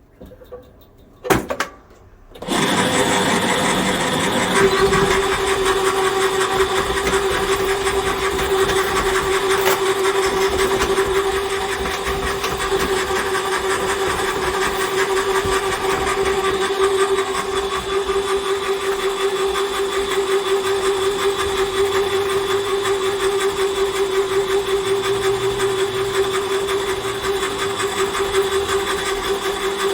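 Electric cable-stripping machine started with a click, then running steadily with a constant motor whine as it pulls in and strips earth cable off the drum; near the end it is switched off and its pitch falls as it winds down.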